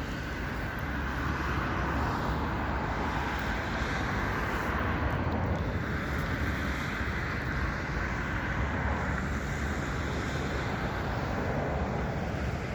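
Steady outdoor background noise: a constant low rumble with an even hiss of wind on the microphone.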